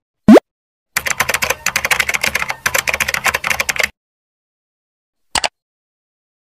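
Computer keyboard typing sound effect: about three seconds of rapid keystrokes as a search phrase is typed in. Just before it comes a short, loud rising pop, and a single click follows a couple of seconds after the typing stops.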